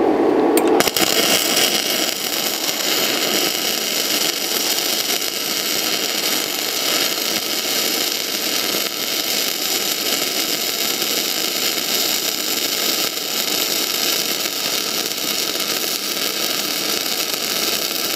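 Gasless MIG welding arc burning Deka self-shielded flux-cored wire on steel tube: a steady, loud hiss that strikes up about a second in and runs without a break.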